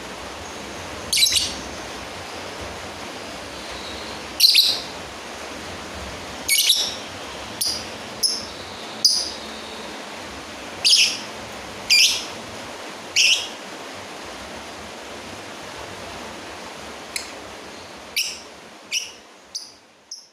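Lovebird giving short, shrill calls, about fourteen of them spaced a second or so apart over a steady hiss, calling out to a rival. The sound fades out near the end.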